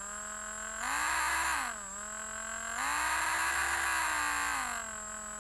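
Drill motor running with a steady whine that speeds up twice, briefly about a second in and for about two seconds from three seconds in, rising in pitch and getting louder each time before dropping back to its lower speed.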